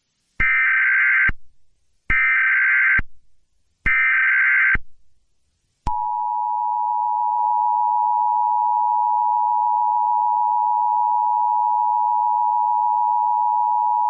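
Emergency Alert System SAME header: three screeching digital data bursts, each just under a second long, sent to open a new alert. About six seconds in they give way to the EAS two-tone attention signal (853 and 960 Hz), a steady harsh dual tone held for about eight seconds.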